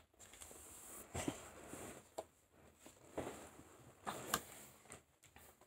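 Faint handling sounds of tarot cards: a few soft taps and rustles, with a small cluster of them about four seconds in.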